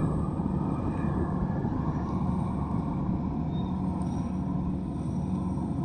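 Kubota DC-70 combine harvester's diesel engine running steadily while it cuts rice, a constant mechanical hum.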